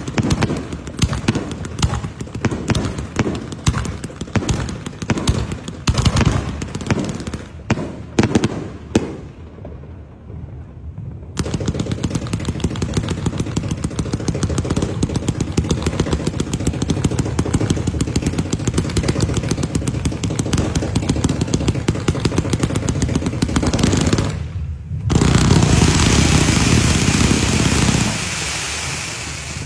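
Firecrackers going off: a long run of rapid crackling pops, easing briefly and then resuming as a dense, steady crackle. Near the end, after a short break, a louder hissing rush sets in.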